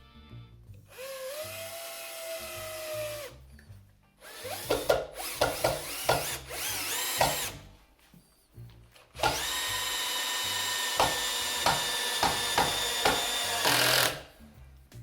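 Bosch UniversalImpact 18 cordless drill driver driving a long wood screw into wood in screw mode, its motor whining in three runs. In the second and third runs it stutters and clicks at regular intervals, the torque clutch slipping as the screw reaches the most this torque setting can drive.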